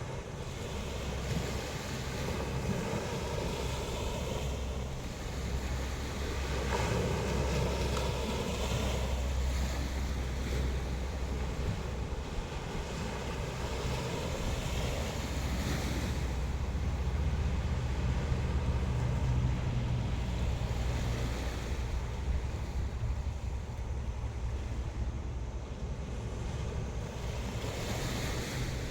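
Sea waves washing onto the shore in surges, with wind buffeting the phone's microphone as a steady low rumble.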